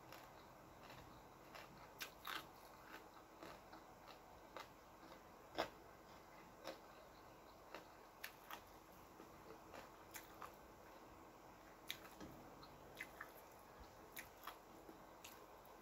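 A person eating a meal of rice and crispy fried small fish by hand: faint chewing with irregular short clicks and small crunches, the loudest about five and a half seconds in.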